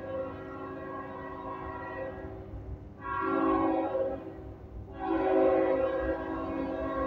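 Train horn sounding a held chord over a low rumble, with two louder blasts, one about three seconds in and a longer one from about five seconds in.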